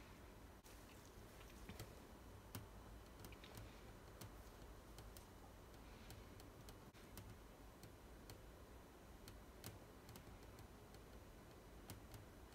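Near silence, with faint, irregular ticks and clicks from a palette knife working thick acrylic paint on a palette and canvas.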